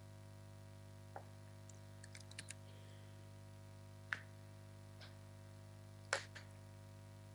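Steady low hum with a handful of short sharp clicks and knocks over it, the loudest about four and six seconds in.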